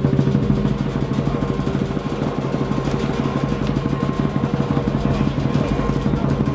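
Large Chinese lion dance drum played in a fast, even roll of rapid beats, held steady throughout.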